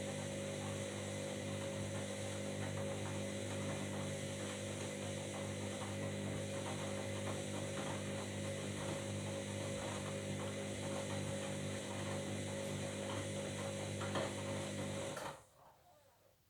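Washing machine running, a steady motor hum with light irregular clicking and rattling, which cuts off suddenly about fifteen seconds in.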